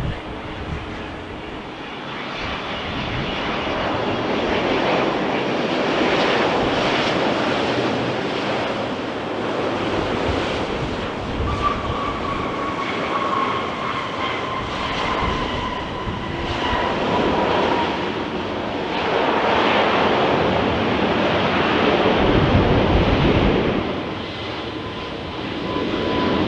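Jet engines of a landing Airbus A350-900 (Rolls-Royce Trent XWB turbofans): a loud, steady jet rush that swells and fades, with a thin whine that slides slowly down in pitch from about halfway through.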